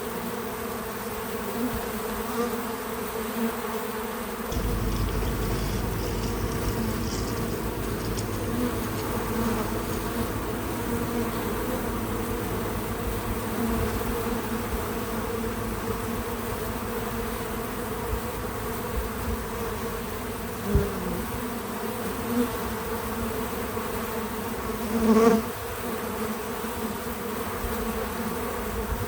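Many bees buzzing steadily around a feeder, a dense hum of wingbeats. A low rumble joins about four seconds in. Near the end a single bee passes close, giving a brief louder buzz just after a short tap.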